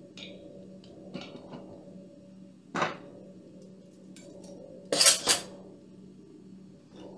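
Metal kitchen spoons clinking and clattering: a few light clinks, a sharp knock a little before three seconds in, and a louder double clatter about five seconds in as a set of metal measuring spoons is put down on the cutting board. A faint steady hum runs underneath.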